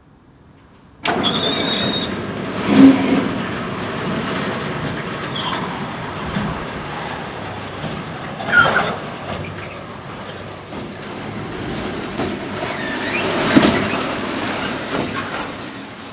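A motor vehicle running, with a few brief squeals along the way. It starts suddenly about a second in and swells louder three times.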